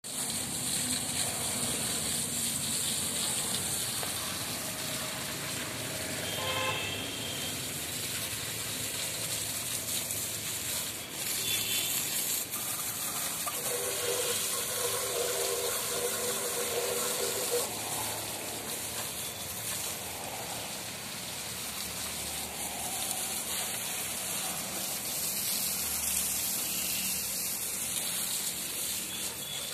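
Water jet from a garden hose spraying over a small tractor's engine and wheels and splashing onto wet paving: a steady hiss and patter. A steady tone sounds for a few seconds about halfway through.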